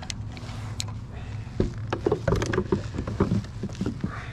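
Knocks and clatters of gear being handled on a fishing kayak, bunched from about a second and a half in, over a steady low hum.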